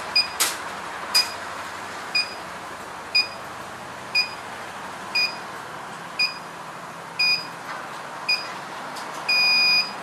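Burglar alarm control panel beeping once a second after being armed in away mode, the exit-delay countdown. It ends in one longer beep near the end, and there are two clicks at the start.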